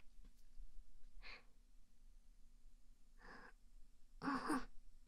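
A woman breathing out in soft sighs, three breaths in all; the third, about four seconds in, is the loudest.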